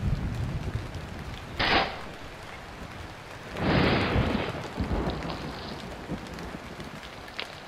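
Thunderstorm sound effect: steady rain hiss with low thunder rumble, and two short harsh noisy bursts, one about a second and a half in and a longer one between three and a half and four seconds.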